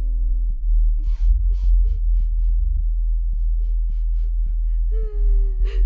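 Horror-film sound design: a deep, steady drone under a run of short, ragged gasping breaths. About five seconds in, a held, slightly falling moaning tone sets in.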